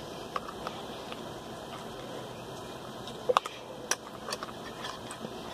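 A thin plastic utensil clicking and scraping against the inside of a metal can of canned lunch meat as the meat is pried loose. A few scattered sharp clicks, the two loudest about three and a half and four seconds in, over a steady background hiss.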